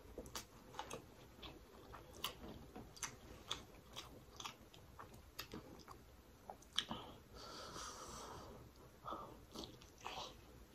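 Close-miked biting and wet chewing of sauce-covered lobster meat, with many small sharp mouth clicks and smacks. A breathy rush of air comes about seven and a half seconds in.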